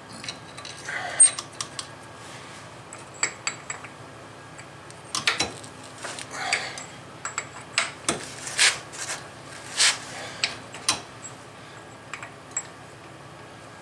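Scattered metallic clinks and short scrapes of hand tools, a socket and a long breaker bar, being worked on a car's front axle nut at the wheel hub.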